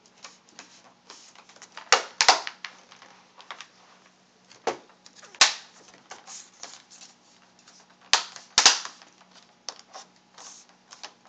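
Plastic screen bezel of an HP G71 laptop being pressed back onto the display lid by hand: a run of sharp plastic clicks as its clips snap into place. The loudest come in close pairs about two and eight seconds in, with strong single clicks about five seconds in and fainter clicks and rubbing between.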